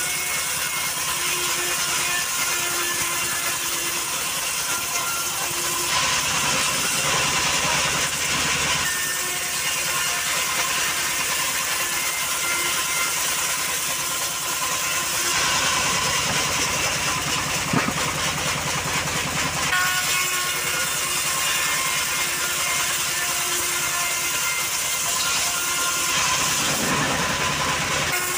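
Homemade band sawmill running, its blade slicing a plank of johar (kayu hitam) wood as it is fed along the table. The machine noise is steady and grows heavier for a few seconds at a time, three times.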